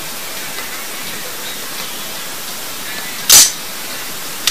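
Steady hiss, with one sharp, very loud clack about three seconds in and a lighter click at the end, from handling a Blow Compact 2002 blank pistol.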